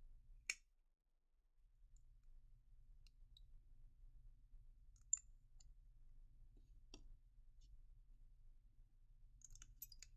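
Near silence with a low hum and a few faint, isolated clicks and taps, one about half a second in, others about five and seven seconds in, and a small cluster near the end.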